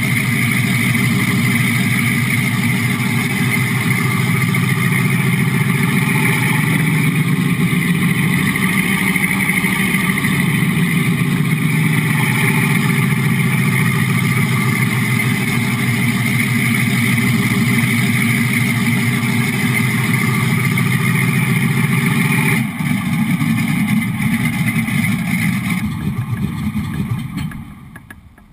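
Simulated Sherman tank engine played by a Model Sounds Inc. SFX6 sound module through the 1/6-scale model tank's speaker, running steadily as the model drives. The sound changes about 23 seconds in, then fades away and stops near the end.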